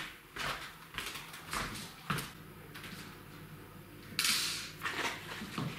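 Footsteps in rubber boots on a wooden floor: a run of short knocks about every half second, then a brief rustle about four seconds in.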